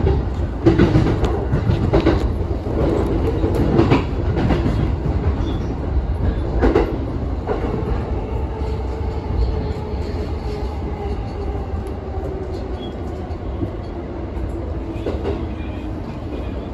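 Electric commuter train's wheels clattering over points and rail joints, heard from the driver's cab: a run of sharp knocks for the first eight seconds or so. After that comes a steadier, gradually fading rumble as the train slows along the station platform.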